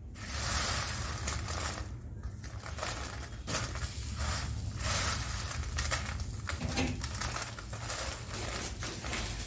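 Crisp besan sev rustling and crackling in irregular bursts as hands toss and crumble it over a steel plate.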